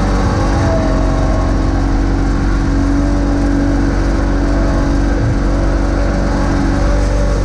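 John Deere X585 garden tractor's twin-cylinder engine running at a steady pitch as the tractor drives forward pushing snow with its front blade.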